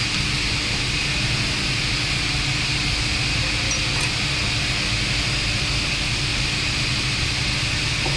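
Metal lathe's drive running with a steady hum, with a faint tick about four seconds in.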